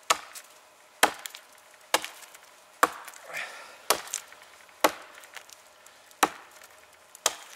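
Fiskars X7 hatchet chopping into the trunk of a standing dead conifer. There are eight sharp, ringing strikes, about one a second.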